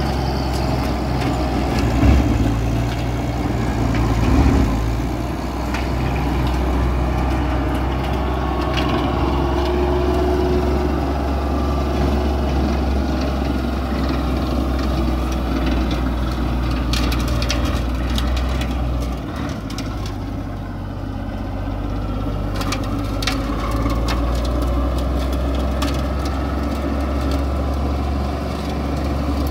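IHC 1055 tractor's diesel engine running steadily, with brief louder moments about two and four seconds in and a slight drop in the engine note a little past the middle. Scattered light clicks and ticks sit over the engine sound in the middle part.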